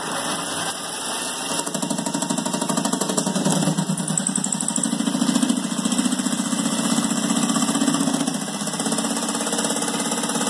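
Electric jigsaw cutting a notch into plywood, its reciprocating blade making a fast, steady chatter that gets louder about two seconds in.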